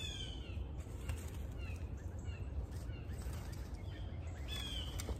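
Birds calling: a clear whistled call sliding down in pitch at the start and again near the end, with short, softer chirps between, over a steady low rumble.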